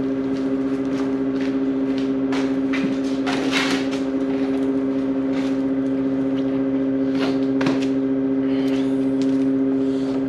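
A steady machine hum of a few constant tones, with frequent short clicks and light knocks over it.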